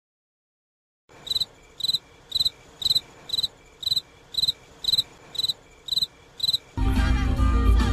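A cricket chirping steadily, about two short chirps a second, eleven in all, over a faint hiss, after about a second of dead silence. Music with guitar comes in loudly near the end.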